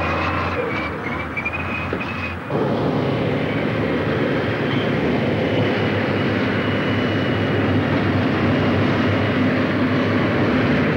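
Heavy diesel engines of wheeled motor scrapers running under load on earthworks. A high wavering whine sits over the engine noise for the first couple of seconds; about two and a half seconds in the sound changes abruptly to a steadier, fuller engine noise.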